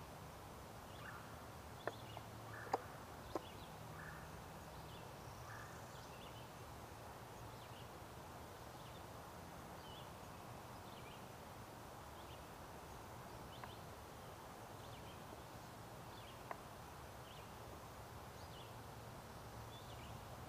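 Quiet woodland ambience: faint, short songbird chirps scattered throughout over a low steady background hum, with a few sharp clicks about two to three seconds in and one more later on.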